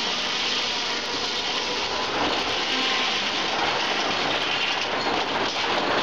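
Old circular sawmill with a top saw running as the carriage carries a log through the spinning blades. It makes a steady, noisy sound that gets a little louder about two seconds in.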